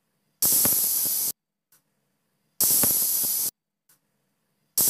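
Pressure cooker letting off steam in short hisses: two bursts of about a second each, about two seconds apart, and a third starting near the end.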